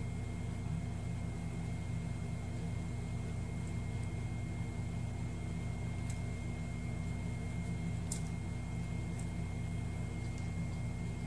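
Steady low mechanical hum with a thin, high, steady whine above it, and a few faint clicks about six and eight seconds in.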